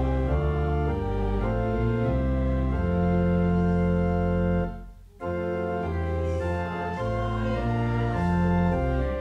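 Church pipe organ playing a hymn tune in held chords, with a brief break about five seconds in between two lines.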